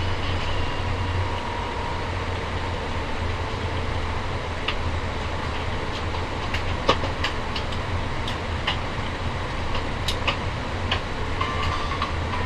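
Airbus A350-900 airliner cabin noise: a steady low rumble under an even hiss, with scattered light clicks and knocks at irregular moments.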